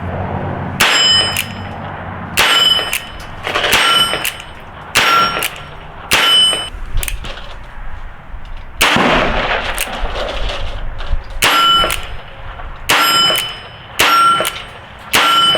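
A Chiappa .22 revolver fired about ten times at a slow, even pace. Each crack is followed moments later by a bright metallic ring from a struck steel target.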